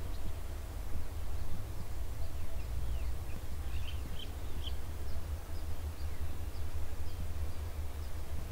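Birds chirping in many short, high calls over a steady low rumble.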